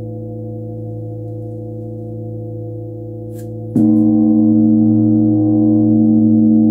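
Large flat bell (bilo) tuned to 111 Hz ringing with a deep steady tone and many overtones. It is struck again with a mallet a little under four seconds in, and the louder, fuller tone rings on steadily.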